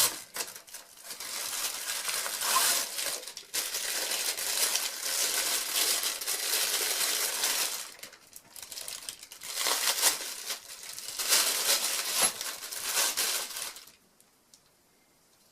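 Plastic packaging crinkling and rustling as an item is unwrapped by hand, in long stretches with short pauses, stopping about a second and a half before the end.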